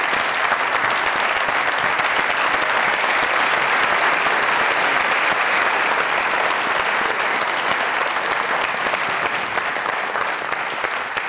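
Studio audience applauding, a steady dense clapping that eases off slightly near the end.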